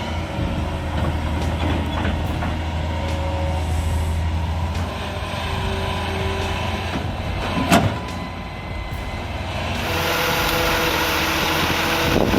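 Heavy logging vehicle engine running steadily, with one sharp knock a little past the middle.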